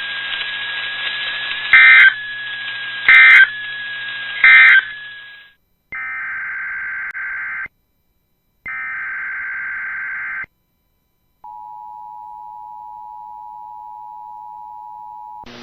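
NOAA Weather Radio audio: a steady whistle over radio hiss broken by three short, loud SAME end-of-message data bursts. After a brief silence come two longer SAME header data bursts, then the two-tone EAS attention signal held steady for about four seconds, marking the start of a new alert.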